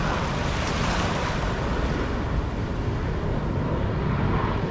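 Small waves washing up on a sandy beach, with steady wind buffeting the microphone.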